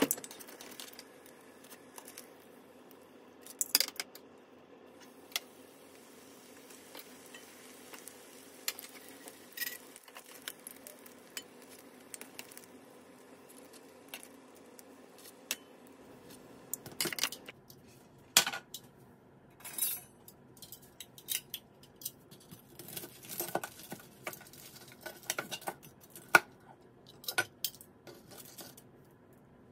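Spring rolls shallow-frying in oil in a frying pan, with a faint steady sizzle broken by a few sharp clicks of utensils against the pan. In the second half, a run of clinks and taps from metal tongs, a tray and a cutting board as the fried rolls are moved and set out.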